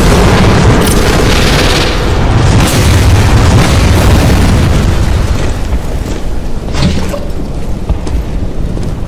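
Animated explosion sound effects: a loud blast with a deep rumbling that dies down over the second half, and a sharp bang about seven seconds in.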